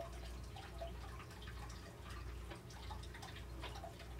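Faint, irregular small ticks and crackles of wood-shaving bedding shifting under a corn snake's coils as it swallows a rat, over a steady low hum.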